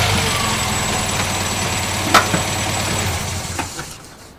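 An engine running steadily, with a sharp click about two seconds in; the sound fades out near the end.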